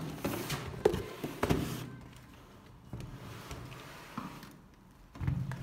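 Cardboard shoe boxes being moved and stacked by hand: several sharp knocks and scrapes in the first two seconds, softer taps after, and a louder low thud near the end.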